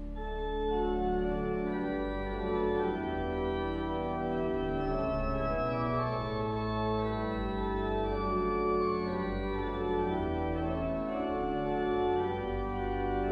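Two-manual organ playing sustained full chords over deep bass notes, the harmony changing every second or so.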